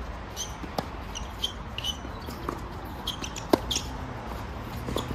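Tennis ball struck by rackets in a doubles rally: a few sharp pops spaced a second or two apart, the loudest about three and a half seconds in. Short high squeaks come between the hits.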